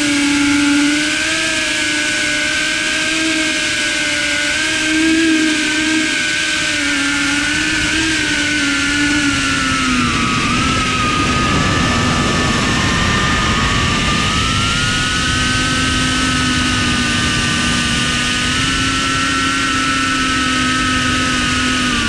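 Cinewhoop FPV drone's brushless motors and ducted propellers whining, several close pitches shifting with throttle. The pitch drops about ten seconds in, then holds steadier and rises again near the end.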